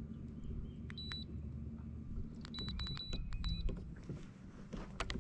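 Electronic beeps from a boat's trolling-motor wireless remote as its buttons are pressed: one short high beep about a second in, then a quick run of four. A low steady hum underneath stops about halfway through.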